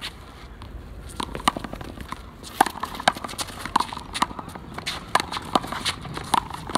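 One-wall handball rally: a small rubber ball smacked by gloved hands and rebounding off the concrete wall and court, a rapid string of sharp slaps and bounces starting about a second in.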